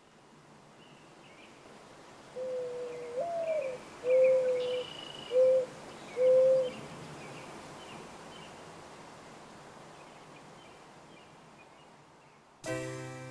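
Mourning dove singing its cooing song once: a first coo that swoops up and back down, followed by three steady low coos. Faint chirps of other birds run underneath, and piano music comes in near the end.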